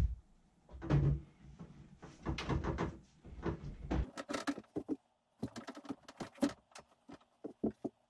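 Handling knocks, thumps and scrapes of a window air conditioner's casing being pushed and fitted into a wall opening, with a run of quick clicks and taps in the second half.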